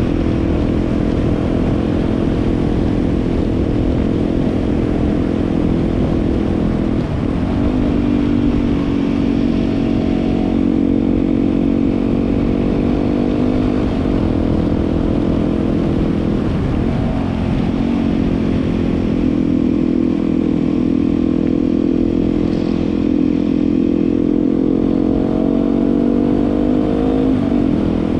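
Yamaha WR250R's single-cylinder four-stroke engine running at speed. Its note dips and shifts briefly several times, about 7, 14, 17 and 27 seconds in, over a steady low rumble.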